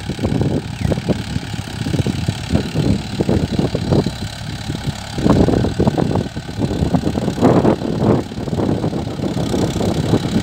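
Mahindra Yuvo 575 DI tractor's four-cylinder diesel engine running while it pulls a cultivator through the soil, with uneven low rumbling surges throughout.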